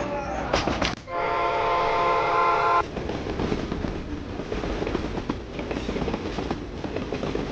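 Battery-powered toy train running: its electronic horn sounds a steady chord for about two seconds, then the train clatters and rattles along.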